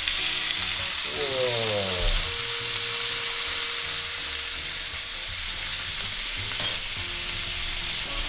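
Wagyu ribeye and filet steaks sizzling steadily in their rendered fat on a hot griddle plate over a gas range. A brief sharp click comes about six and a half seconds in.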